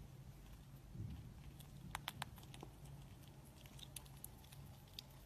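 Squirrel gnawing on food held in its paws: faint sharp clicks of nibbling, three close together about two seconds in and a few more later, over a low steady hum.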